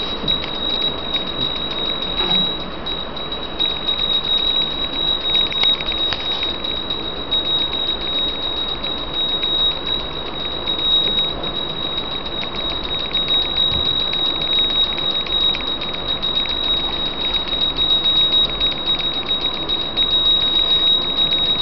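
Pooja hand bell rung rapidly and without pause during the aarti, one steady high ringing tone over fast, even clapper strikes.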